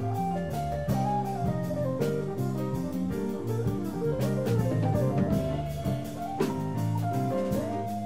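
Live instrumental ensemble playing: cello, violins and electric bass guitar over a drum kit, with sustained pitched lines and regular drum hits.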